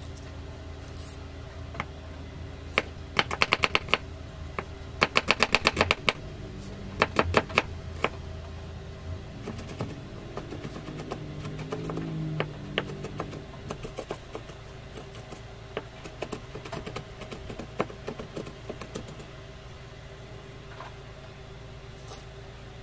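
Kitchen knife chopping shallots on a wooden cutting board: three fast runs of quick blade strikes on the wood, then slower, scattered cuts.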